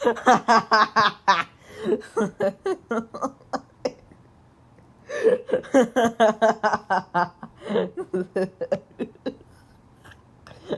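A voice in wheezing laughter, quick breathy pitched bursts in two long runs with a short pause about four seconds in.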